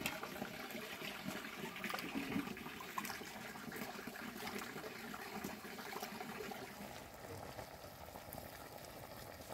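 Water running from an outdoor standpipe tap into an aluminium pot while rice is rubbed and swirled in it by hand, with small splashes and sloshes. Near the end, water bubbling at the boil in a pot over a wood fire.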